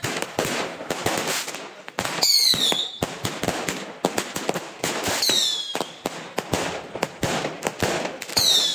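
Aerial fireworks going off in quick succession: many sharp bangs and dense crackling, with a short whistle falling in pitch three times, about every three seconds.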